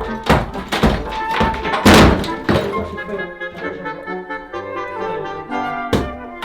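Background music with a brass-like melody over a series of heavy knocks, several in the first three seconds and one more near the end.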